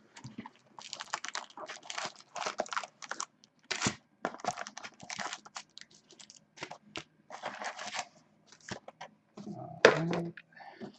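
Trading-card packaging being torn open and crinkled by hand in a run of irregular rustles and rips, with a sharper, louder crack near the end.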